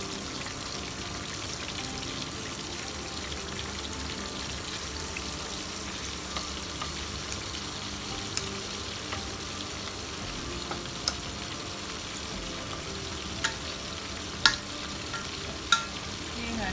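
Strips of tofu skin (yuba) deep-frying in a pan of bubbling oil: a steady sizzle, with a few sharp pops in the second half.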